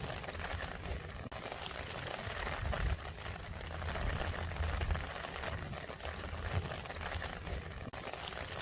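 Rain falling steadily: a dense, crackling patter of many drops, with a low rumble underneath.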